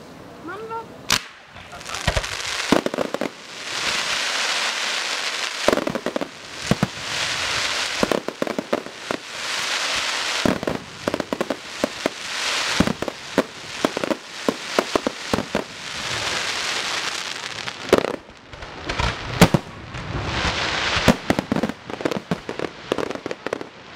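Aerial fireworks display: sharp shell bursts bang one after another over long stretches of dense crackling. There is a short lull about 18 seconds in before a quick run of bangs.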